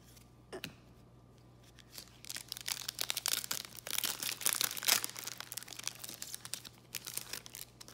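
Foil wrapper of a trading card pack being torn open and crinkled by hand: a dense crackling from about two seconds in until near the end, loudest in the middle.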